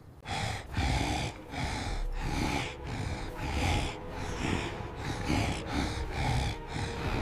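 Heavy, rhythmic breathing of a mare in labour, about two hard breaths a second.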